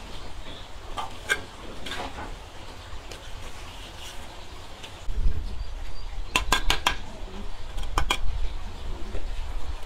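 Cookware and utensils clinking: scattered light clinks, then two quick runs of clinks about two-thirds of the way through, over a low rumble that starts about halfway.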